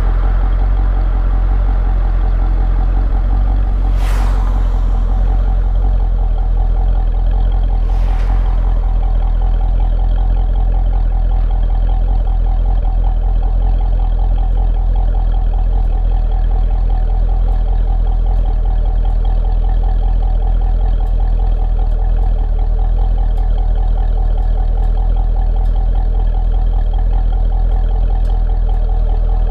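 Chevrolet Corvette C6's V8 running at a steady, even drone, loud and low. Two brief whooshes come through about four and eight seconds in.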